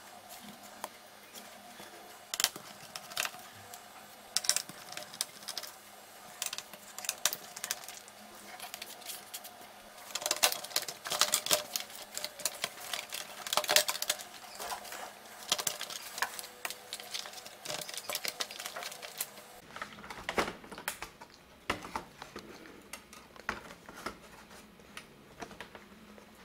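Irregular plastic clicks, taps and scrapes as an HP ProBook laptop's plastic top case is handled and pried loose and its connectors are unplugged. The clicks come thickest in a run about ten seconds in.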